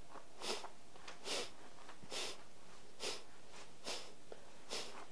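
Kapalabhati breathing done slowly: six short, forceful exhales through the nose, each pumped by a quick contraction of the lower belly, about one a second, with the inhales coming in passively and nearly unheard between them.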